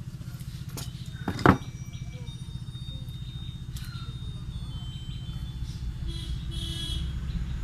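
A motor engine running steadily with a low, pulsing rumble, and one brief loud sound about one and a half seconds in.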